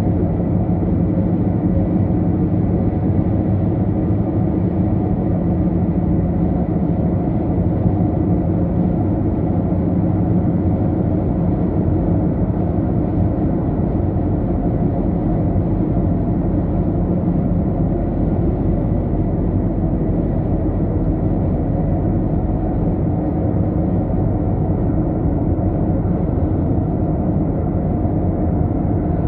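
Steady low road and engine noise of a car cruising at highway speed, heard from inside the cabin.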